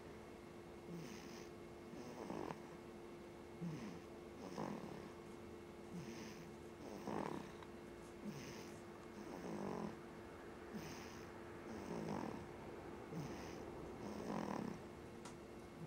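Snoring in a slow, regular rhythm, one breath cycle about every two and a half seconds, with a shorter sound before each longer one. A steady hum runs underneath.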